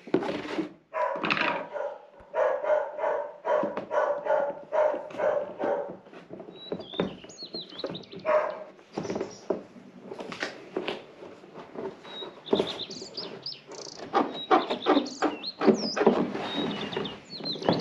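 A dog barking over and over in runs of quick barks, about two a second, which stop and start again through the whole stretch.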